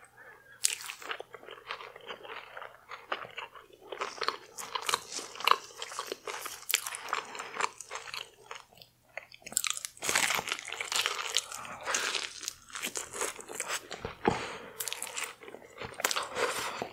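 Close-miked eating: crunchy bites and chewing of seafood in a deep-fried Doritos chip coating, with wet mouth sounds, in irregular bursts that ease off briefly in the middle.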